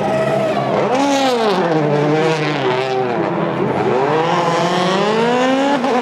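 Rally car engine at full attack: the revs climb, drop off under braking about halfway through, then climb steeply again as it accelerates.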